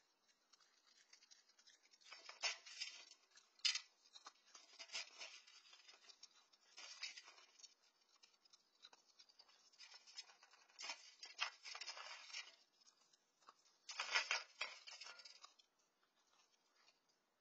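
Raccoon eating dry cat kibble from a metal bowl: bouts of crackly crunching and clicking with short pauses between them, stopping near the end.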